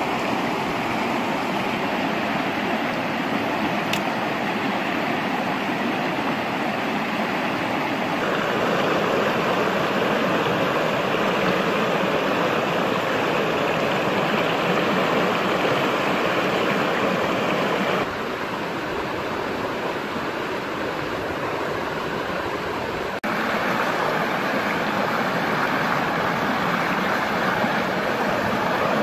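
Stream water rushing over rock slabs and a small cascade, a steady rush with no let-up. It grows louder about eight seconds in, drops back a little at about eighteen seconds, and rises again some five seconds later.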